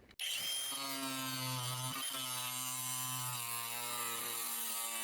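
Hart brushless cordless angle grinder starting and running steadily at speed on a fresh 4 Ah battery, with a brief dip in speed about two seconds in. It keeps running without cutting out.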